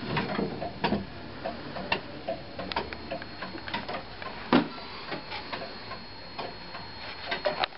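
Antique Dutch Friese wall clock ticking with an uneven beat, one click a good deal louder than the others about halfway through.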